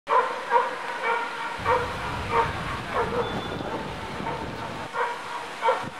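A dog barking repeatedly in short single barks, about one every half second to second, with a pause of nearly two seconds in the middle. A low rumble runs underneath from about one and a half to five seconds in.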